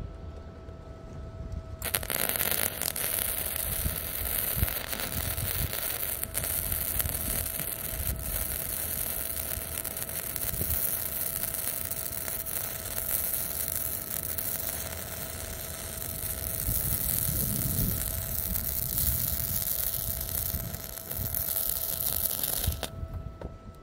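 Arccaptain MIG 200 flux-core welding arc at about 120 amps, running one continuous bead on steel bar with a steady dense crackling hiss. It starts about two seconds in and cuts off abruptly near the end.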